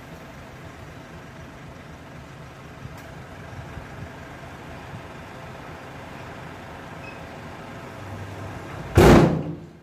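Dump truck's diesel engine idling steadily with its bed tipped up after unloading sand. About a second before the end, a loud sudden burst of noise rises well above the engine and fades within half a second.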